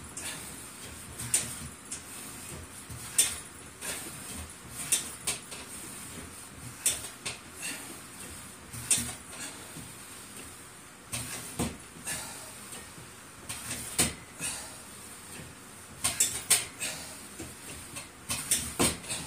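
Home strength-training machine clinking and knocking through a set of repetitions: irregular metallic clanks every second or two, a few coming in quick clusters near the end.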